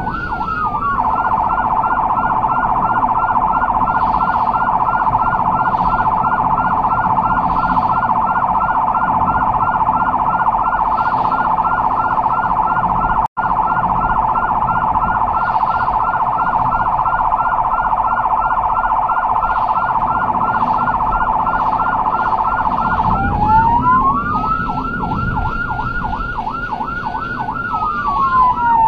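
Electronic emergency-vehicle siren on a rapid yelp, its pitch warbling up and down. It starts on the tail of a falling wail and switches near the end to a slow wail that rises, holds and falls. The sound drops out for an instant about halfway through.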